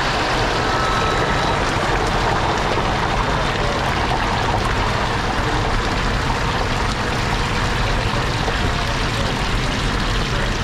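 Chicken nuggets deep-frying in a commercial fryer vat, the oil bubbling and sizzling steadily.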